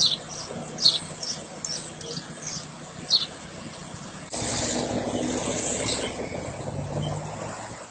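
Street ambience: traffic noise with a few short, high bird chirps, then, about four seconds in, a sudden change to a louder, steady rushing noise.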